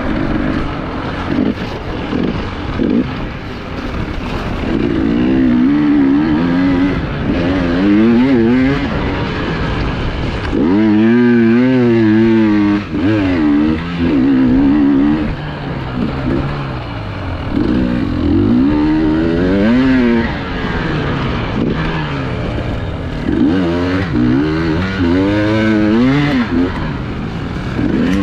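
Enduro motorcycle engine heard close up from the rider's own bike, revving up and down again and again as the throttle is opened and shut over rough off-road ground.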